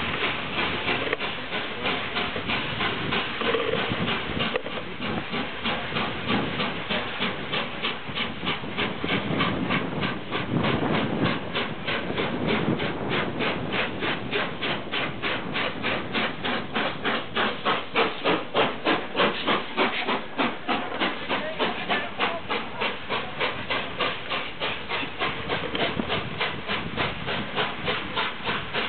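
Steam locomotive 60163 Tornado, a three-cylinder Peppercorn A1 Pacific, working under steam with a quick, steady, evenly spaced exhaust beat over a constant hiss of steam.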